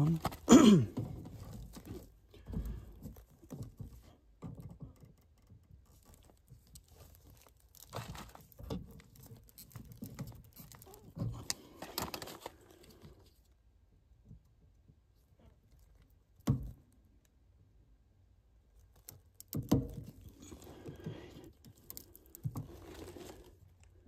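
Intermittent scraping, crinkling and a few sharp knocks of electrical wiring being handled and its insulation stripped with a pocket knife.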